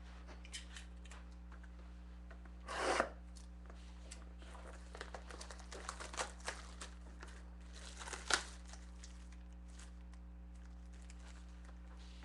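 A factory-sealed box of trading cards being torn open: one loud rip of packaging about three seconds in, scattered rustling and small clicks, then another short sharp rip a little after eight seconds, over a steady low hum.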